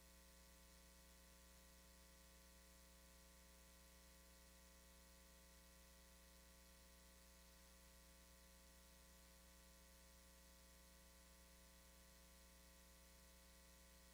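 Near silence: a faint, steady hum with low hiss and nothing else.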